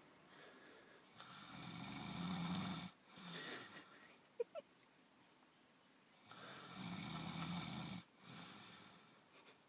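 Snoring: two long buzzing snores about five seconds apart, each lasting nearly two seconds and followed by a shorter, quieter breath out.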